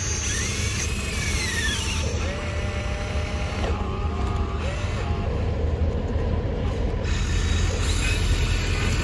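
Small electric motors of a radio-controlled excavator whine in short runs as the arm and bucket move; each run rises in pitch, holds, then falls away. A steady low rumble runs underneath.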